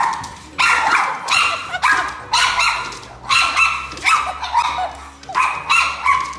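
Small puppy barking in high-pitched yaps, about two a second, as it jumps at a dog on the television screen.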